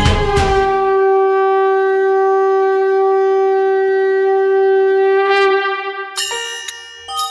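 Drum-heavy music stops about a second in, leaving one long, steady note blown on a horn, held about five seconds before fading out. A few struck bell-like chimes follow near the end.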